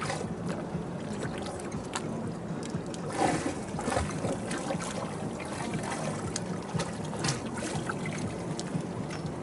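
Small waves lapping and slapping against a sailboat's hull, with irregular splashes, the loudest about three seconds in, over a low steady hum and some wind on the microphone.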